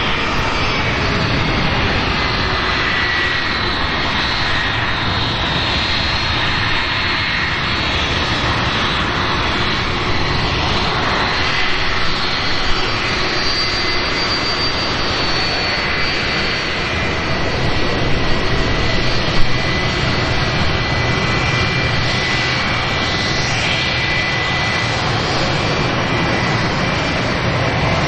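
Jet engines of a Boeing 757-300 airliner running at taxi power: a steady rumble with a thin, high turbine whine over it. A few brief louder knocks come in the second half, the sharpest about two-thirds of the way through.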